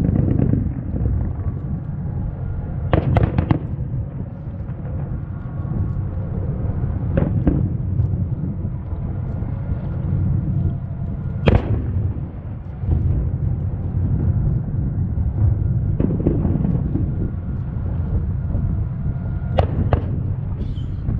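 Aerial firework shells bursting: a sharp bang every few seconds, with two close together about three seconds in and two more near the end, over a steady low rumble.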